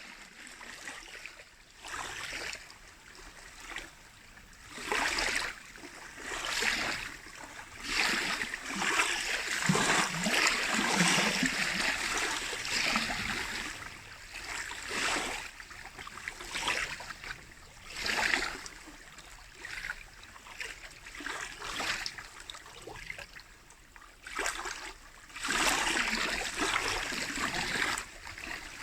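Small lake waves lapping and splashing against the shore in irregular surges every second or two, with a longer spell of steady splashing about a third of the way in.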